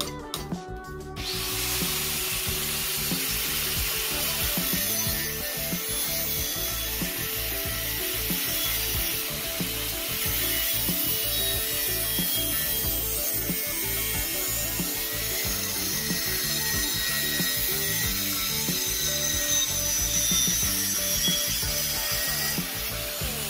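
Angle grinder disc grinding into stainless steel sheet held in a bench vise, a steady harsh hiss that starts about a second in and dips briefly near the end.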